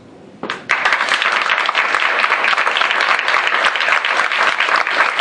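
A small audience applauding. It is quiet for about half a second, then many hands start clapping together and keep up a dense, steady clapping.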